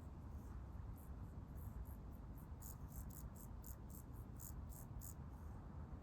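Faint outdoor ambience: high-pitched insect chirps, scattered at first, then coming quickly, about four a second, for a few seconds in the middle, over a soft steady low rumble.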